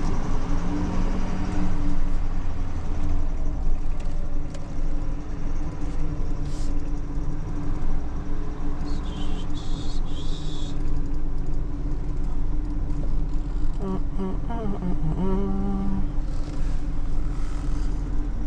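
Vehicle engine running steadily at idle, a low rumble with a constant hum.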